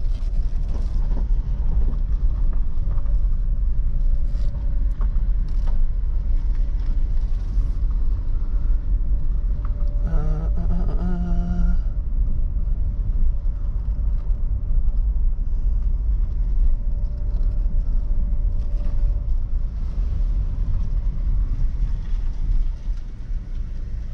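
Car driving, heard from inside the cabin: a steady low rumble of engine and road noise, with a short pitched tone about ten seconds in.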